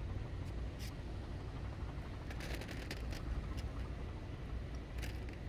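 Seawater lapping at the shore over a steady low rumble, with short splashes about a second in, in a cluster around the middle, and near the end.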